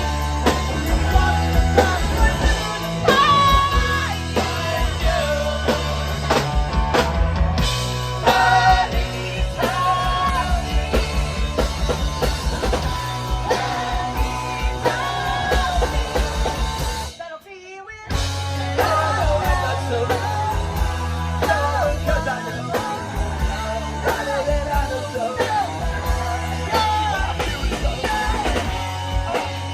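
A live rock band playing: drums, bass and electric guitars under sung vocals. About seventeen seconds in the whole band stops dead for under a second, then crashes back in together.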